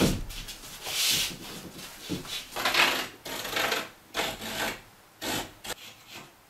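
A sheet of cement backer board knocks against the wall framing, then a series of short, rough scrapes as the board is slid and pressed into place against the studs.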